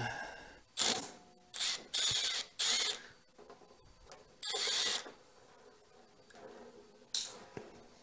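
Cordless drill-driver running in several short whirring bursts as it backs out a sheet-metal screw from a freeze dryer's back panel, followed by a brief clatter near the end.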